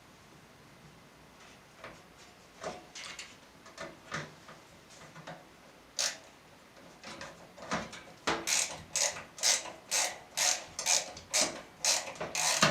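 Screwdriver turning a motherboard screw into the case: scattered clicks and scrapes, then from about two-thirds in a regular run of short ratcheting strokes, about two a second.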